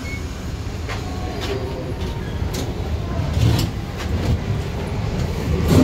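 Elevator car travelling, a steady low rumble with a few faint clicks.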